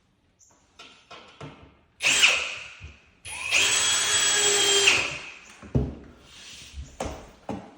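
Power drill driving screws to fasten drywall: a short burst, then a longer steady whining run, followed by a few knocks.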